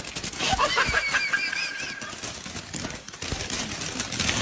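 Ground fireworks spraying sparks, with a dense crackle of small pops. In the first two seconds, high wavering cries sound over the crackle.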